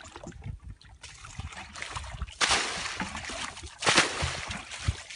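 Shallow muddy water splashing and sloshing as hands and a plastic bucket churn through a puddle, with louder splashes about two and a half and four seconds in.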